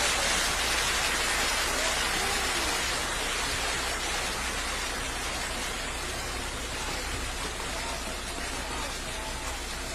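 Steady rushing wash of a muddy landslide debris flow, mixed with rain, gradually getting a little quieter.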